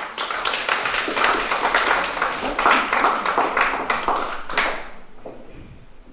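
An audience clapping: many hands in quick, irregular claps that thin out and fade after about four and a half seconds.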